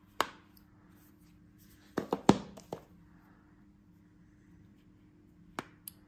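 Sharp clicks and knocks from Samsung Galaxy Z Fold3 and Z Flip3 folding phones being handled: one near the start, a quick run of four about two seconds in, and two more near the end.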